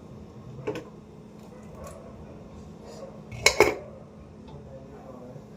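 Kitchen pots and utensils clattering while tea is made on the stove: a light knock about a second in and a louder, brief clatter a little past the middle, over a steady low hum.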